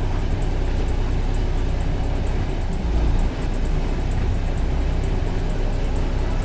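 Steady low rumble of a fishing boat's engine running, with a faint regular high ticking over it.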